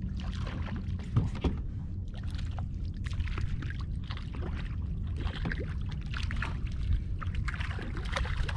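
Water splashing and lapping around a kayak over a steady low wind rumble while hooked mackerel are reeled in, with a fish splashing at the surface near the end.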